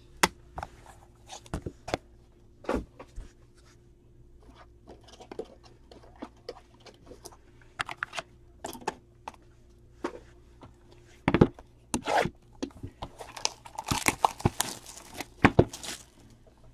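Handling noise from trading cards, plastic card holders and a cardboard card box: scattered clicks, taps and rustles. They come closer together in the last few seconds as the next box is picked up.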